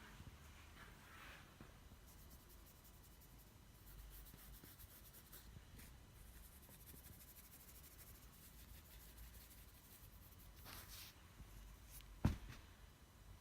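Near silence broken by soft snoring breaths from a sleeper: one about a second in and another near the end, with a single sharp click just after it.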